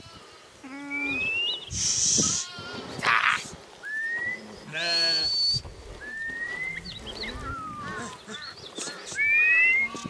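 A flock of sheep bleating, several animals calling in turn with wavering cries, mixed with short rising whistles.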